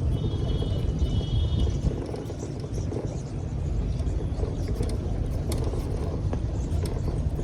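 Ola electric scooter being ridden over a bumpy road, with a low rumble and scattered sharp ticks and rattles from the front suspension, really loud; the owner traces this tick and rattle to a faulty front suspension.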